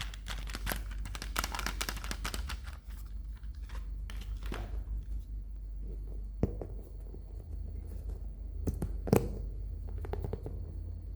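Packaging being unwrapped by hand: a dense run of crinkling and tearing for about the first three seconds, then a few separate sharp clicks and taps as the toy and wrapping are handled.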